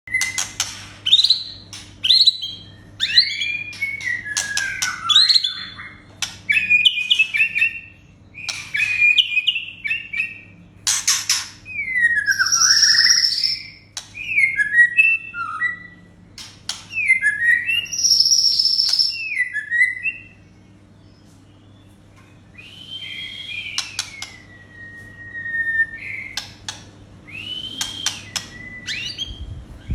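White-rumped shama singing a loud, varied song of whistled phrases that slide up and down, twice broken by harsh, rasping notes. After a short pause it gives a long whistle that glides downward, then more short phrases. A faint steady low hum runs underneath.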